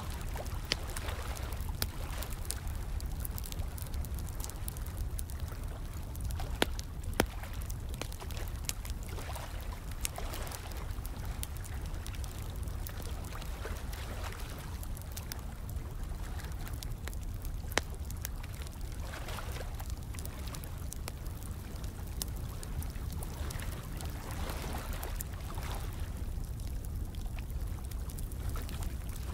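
Fire crackling, with scattered sharp pops, over steadily trickling and pouring water and a low rumble underneath.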